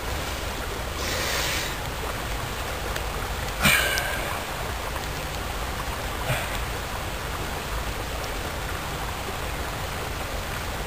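A steady hiss, with a few brief scrapes and rustles as a twig is worked into a tarantula burrow in dry soil and pine-needle litter. The loudest is a sharp scrape about four seconds in.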